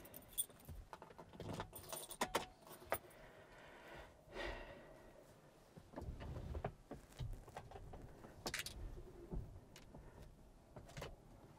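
A bunch of keys jangling in hand, with scattered small clicks and knocks of handling in a quiet light-aircraft cockpit, the engine not yet running.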